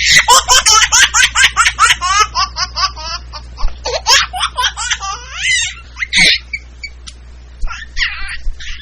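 A baby laughing: a fast run of high-pitched laughs, about five a second, for the first few seconds, then shorter scattered laughs and squeals with pauses between them.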